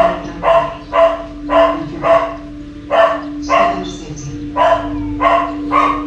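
A dog barking repeatedly: about ten short barks, roughly two a second, with a couple of brief pauses.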